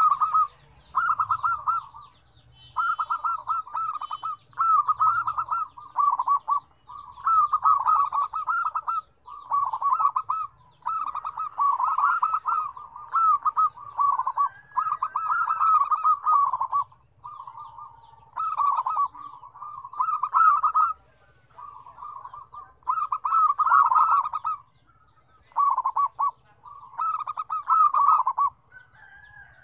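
Several zebra doves (perkutut) cooing, with voices of differing pitch. Their phrases of rapid, stuttering coos last a second or two each and follow one another with only short pauses.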